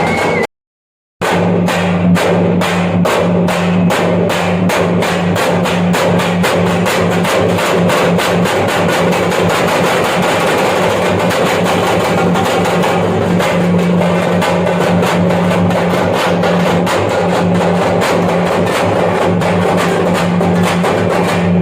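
Thappattam (parai) frame drums played fast and dense in a driving rhythm over a steady low drone, cutting out for about half a second near the start before resuming.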